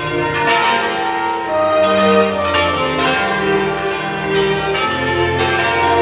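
Several church bells pealing together from the bell tower, loud and continuous. Strokes at different pitches come irregularly, about every half second to a second, each ringing on into the next.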